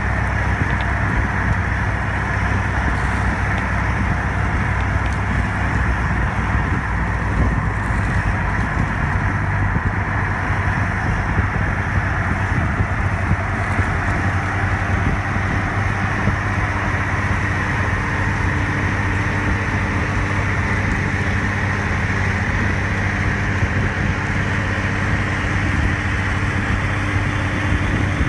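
Diesel engine of a McConnell-Marc 1000 four-wheel-drive tractor running steadily under heavy load as it pulls a KRAUSE Dominator through corn stalks on a primary tillage pass. There is a low, even drone, and about halfway through a steady hum joins it as the tractor comes abreast.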